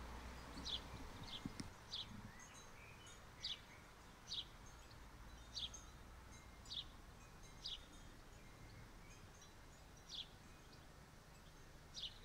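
A bird calling with short, high, slightly falling chirps, repeated about once a second over faint outdoor background hiss.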